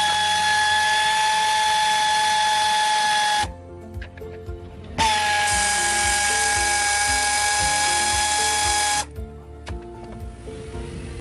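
A power tool running in two steady bursts of about four seconds each, with a high whine that dips slightly as each burst starts, over background music.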